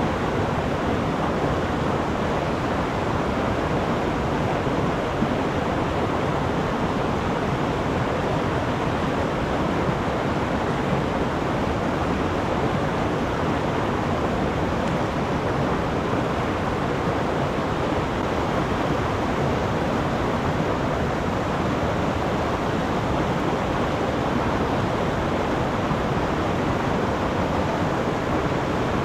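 Mountain stream rushing, a steady, even wash of running water.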